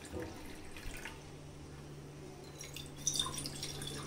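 Cucumber juice being poured into a glass: a faint liquid trickle and drips, a little louder about three seconds in.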